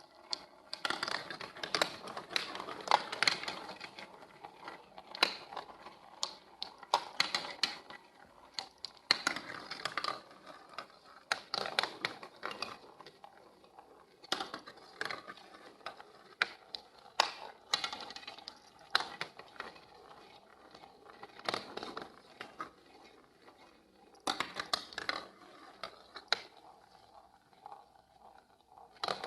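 Marbles rolling and clacking along a building-block marble run: rapid clicks and rattles that come in bunches, with short lulls between.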